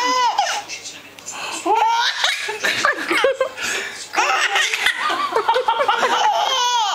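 Baby laughing in runs of high-pitched giggles with falling pitch, pausing briefly about a second in before laughing again.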